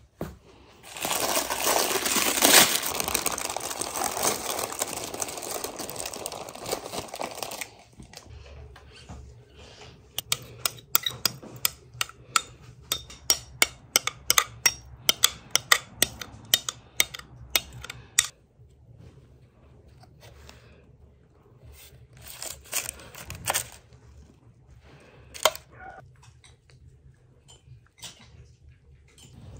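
Kitchen handling sounds while making cake batter. First comes several seconds of loud, steady rustling. Then comes a run of quick light clinks of a utensil against a bowl, several a second, for about eight seconds. A few scattered knocks follow.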